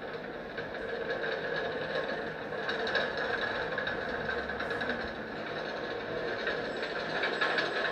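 Steady running noise of a moving vehicle.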